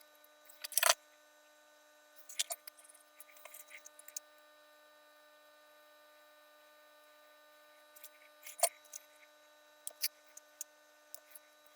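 Scattered light clicks and taps of small electronic parts and hand tools being handled on a workbench, over a faint steady electrical hum.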